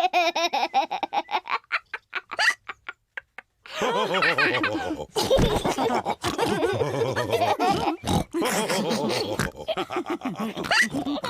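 Cartoon pig characters laughing and snorting in bursts, with a short lull about three seconds in before the laughing and snorting pick up again.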